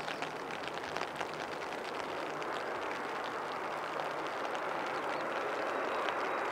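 Boeing 787 Dreamliner on final approach, its jet engines a steady rushing noise that slowly grows louder as the airliner comes nearer.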